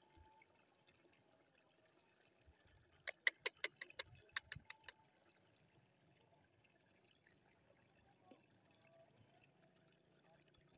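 Mostly near silence, with a quick run of about a dozen sharp clicks about three seconds in, lasting a little under two seconds.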